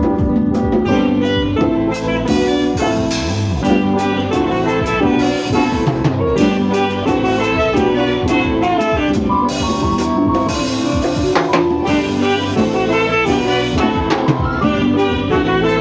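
Live band playing: saxophone leading over a drum kit.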